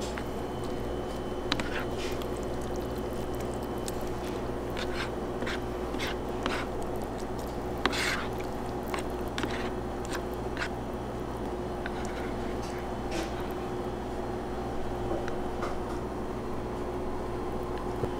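Plastic spoon stirring rice into ramen broth, with soft wet squishes and a dozen or so short clicks against the bowl, over a steady machine hum.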